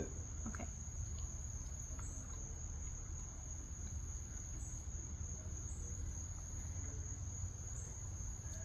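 Crickets chirring in a steady, high-pitched chorus over a low, steady rumble.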